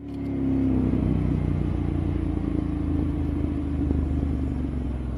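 A motor vehicle's engine running steadily with a low rumble of road and wind noise. It starts abruptly.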